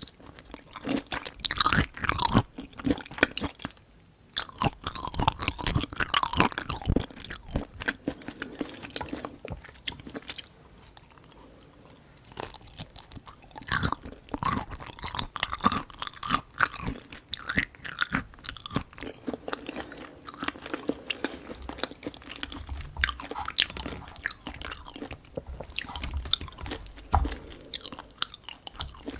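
Close-miked eating: a person chewing and crunching food with wet mouth clicks and smacks, quieter for a couple of seconds around ten seconds in.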